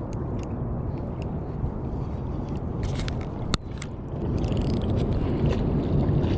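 Wind rumbling steadily on the microphone, growing louder partway through. A single sharp click comes about three and a half seconds in, during a cast with a spinning rod and reel.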